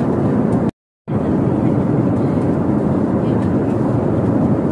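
Steady roar of a jet airliner's cabin: engine and rushing-air noise. It cuts out completely for about a third of a second near the start.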